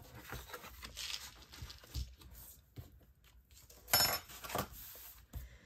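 Objects being handled and set down on a tabletop: a few soft knocks, and a light metallic clink about four seconds in.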